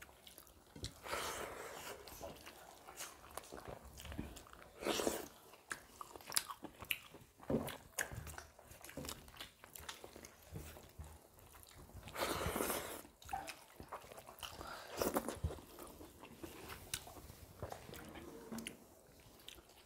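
Close-up eating sounds of people eating rice and chicken-spinach curry by hand: irregular chewing and wet mouth smacks, with fingers mixing rice and curry on steel plates, and a few louder bursts along the way.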